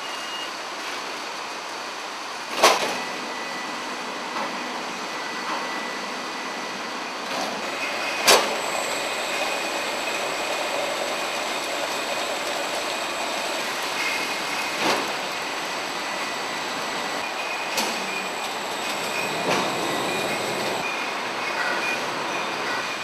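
Automated pallet-handling machinery running: a steady mechanical rumble and hiss with a faint high whine, broken by a few sharp clanks, the loudest about three and eight seconds in.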